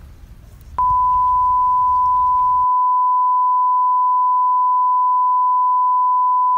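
Television colour-bar test tone: one loud, steady pure beep that starts about a second in, holds without change, and cuts off suddenly near the end.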